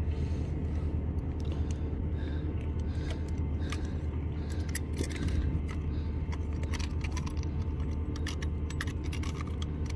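Scattered light metallic clicks and jingles, as small objects are handled, over a steady low hum.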